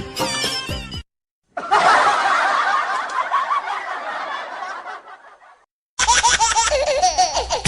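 Canned laughter sound effect: a burst of laughter with many overlapping voices that starts about a second and a half in, then fades away over a few seconds. A short piece of music ends just before it, and another music clip begins near the end.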